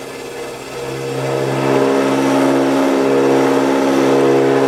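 Small vertical milling machine taking a cut along a bright mild steel plate under power feed: a steady hum with several pitched tones, growing louder over the first second or two and then holding steady.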